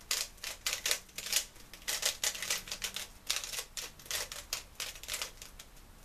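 3x3 Rubik's speedcube being turned fast by hand, a rapid irregular run of plastic clicks from its layer turns, as when the cube is scrambled for the next solve. The turning stops about five seconds in.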